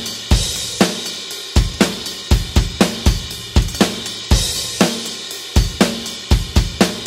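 Acoustic rock drum kit playing a steady groove at 120 bpm: kick and snare hits under a cymbal wash, with no other instruments.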